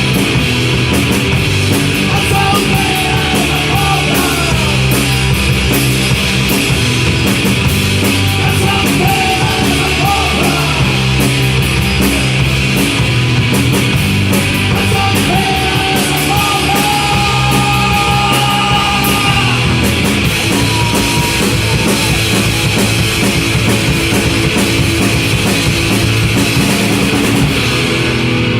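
Loud punk rock played by a band: distorted electric guitars and bass over a fast, busy drum kit, running steadily.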